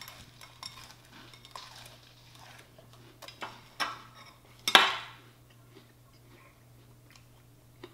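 An oversized metal spoon clinking and scraping in a glass bowl of dry cereal, with scattered light clicks. A little under five seconds in, the spoon is set down on the granite countertop with a sharp clack, the loudest sound here.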